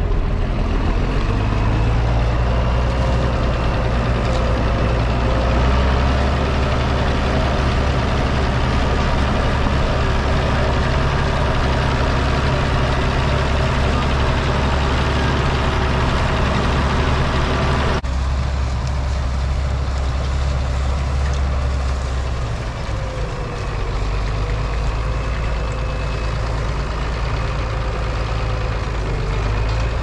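International Harvester 1256 tractor's diesel engine running steadily, its sound changing abruptly about two-thirds of the way through.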